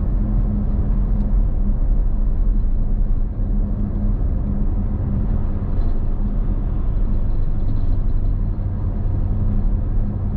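Steady drone of engine and tyres inside the cabin of a BMW X5 twin-turbo V8 cruising at highway speed while towing a car trailer, with an even low hum that holds the same pitch throughout.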